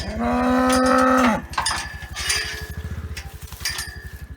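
A cow moos once, a long call lasting about a second and a half at the start, over the steady low pulse of a small engine running.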